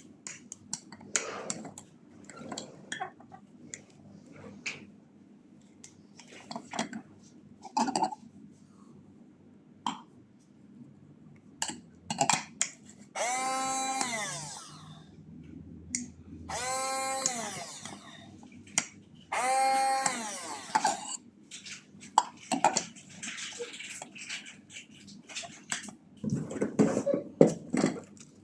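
Small electric motor of a cordless tool run three times in short bursts, each whirring up to speed, holding for about a second and winding down. Between the runs come clicks and rattles of hard plastic parts being handled.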